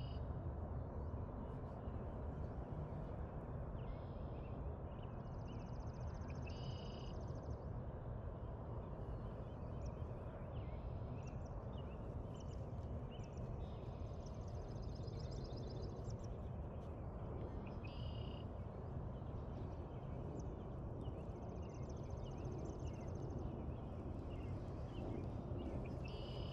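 Birds singing short, finely trilled phrases that recur every few seconds over a steady low rumble of background noise.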